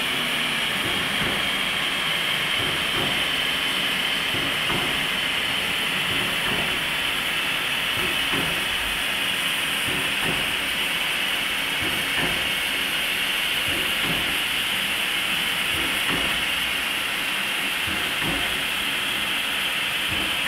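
Steam locomotive hissing steadily, a continuous rush of escaping steam that holds an even level throughout.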